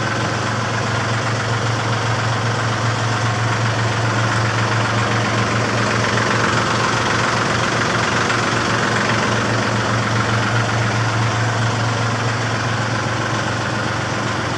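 Backhoe's diesel engine idling, a steady low drone with no change in speed.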